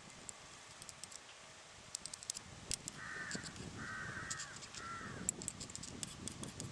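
A crow cawing three times, short harsh calls near the middle, over quiet outdoor background with scattered light clicks.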